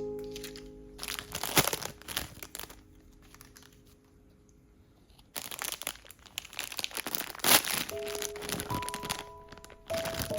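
Gentle background music with packaging crinkling and rustling in two stretches, about a second in and again from about five seconds in until near the end.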